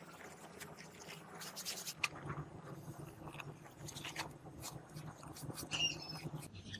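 Hands rubbing and pressing a sheet of faux leather onto a wooden box: an irregular run of soft scrapes and rustles, with a couple of short squeaks near the end.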